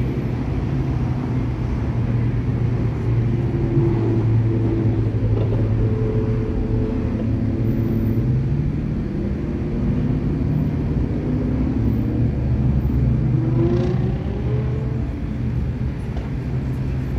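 Engines and exhausts of a line of passing cars and pickups, a steady low rumble with engine notes rising and falling, one climbing near the end as a vehicle accelerates.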